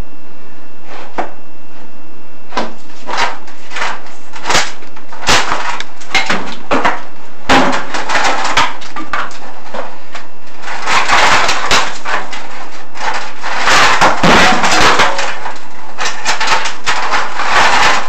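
Chimney inspection camera and its cable knocking and scraping against the rough masonry walls of a furnace flue as it is moved through: scattered sharp knocks, with a longer stretch of rough scraping in the second half.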